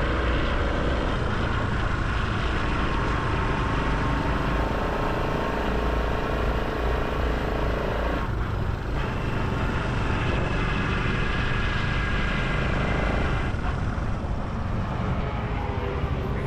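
Honda Hunter Cub single-cylinder motorcycle engine running steadily while riding, with heavy wind rumble on the microphone.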